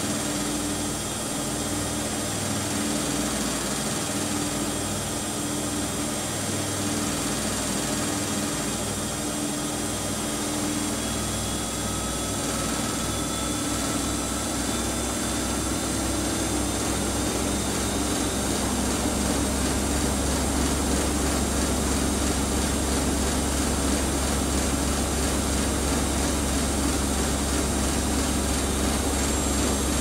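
Two front-loading washing machines, a Siemens Siwamat IQ 716 and a Bosch Aquasensor WFP3231, running side by side. Their drum motors hum in an on-off pulse at first. About two-thirds of the way in the hum turns steady, deeper and louder, with a faint whine slowly rising in pitch, as a drum speeds up.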